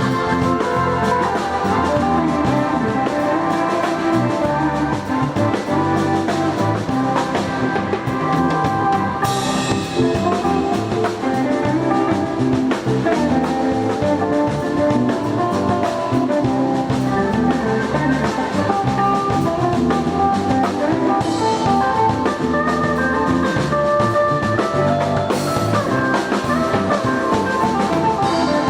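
Instrumental band music with a drum kit and guitar playing steadily, with no singing.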